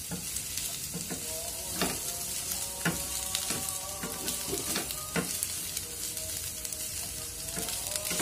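Vegetables sizzling as they stir-fry in a nonstick frying pan, with a wooden spatula scraping and tapping against the pan every second or so.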